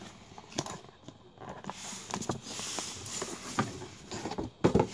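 Cardboard shipping box being opened by hand: flaps scraping and rustling with scattered small clicks and knocks, and a louder knock near the end as the boxed item inside is slid out.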